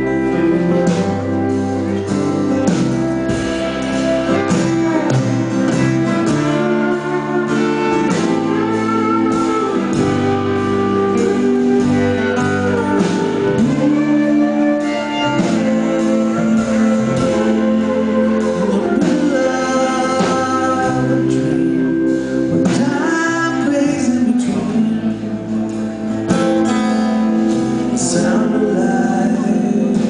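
Live band playing a folk-rock song: strummed acoustic guitar with electric guitar and a man singing, heard from the audience in a concert hall.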